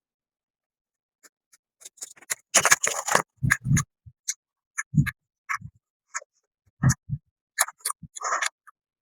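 Close-miked eating: irregular crunchy bites and chewing in short bursts, starting about two seconds in, busiest around three seconds in.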